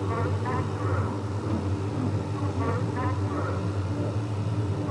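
Outdoor night ambience: a steady low hum under short, buzzy chirping calls that recur every half second or so.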